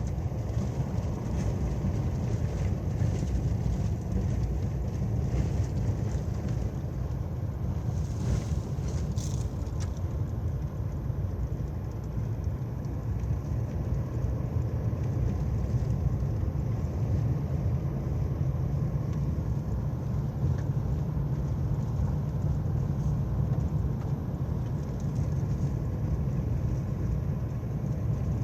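Steady low rumble of a moving vehicle, with road and wind noise and no clear engine note or changes.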